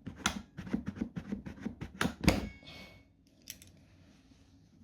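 Quick, uneven clicks and knocks of hard plastic parts being worked loose by hand while taking apart a pressure washer's housing. They fall off after about three seconds, leaving only a few faint clicks.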